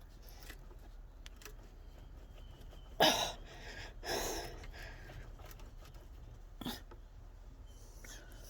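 Short huffs of effort, two breathy bursts a little over a second apart, the first the louder, from someone straining to wiggle and pull a radiator hose off its outlet. A faint click follows near the end.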